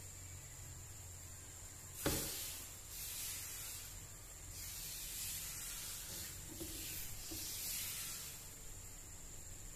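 Faint, steady hiss of thin crepe batter sizzling on a hot nonstick pan as a ladle spreads it round in a spiral, with one short knock about two seconds in.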